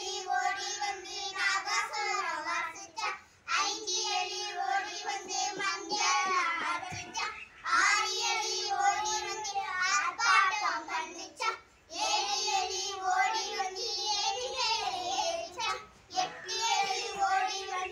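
A small group of young children singing a Tamil action rhyme about a rat together, in sung phrases of about four seconds with short breaks for breath between them.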